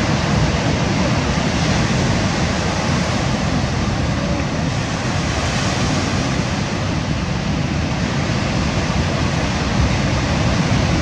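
Ocean surf breaking and washing over a pebble beach, a steady rush of noise, with wind buffeting the microphone.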